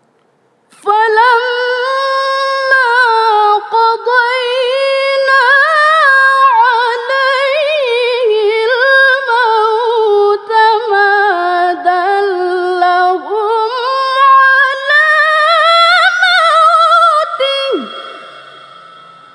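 A woman reciting the Quran in the melodic tilawah style: one long, richly ornamented melismatic phrase with vibrato and wavering turns and only brief dips. It climbs near the end, then falls away sharply and fades in an echo.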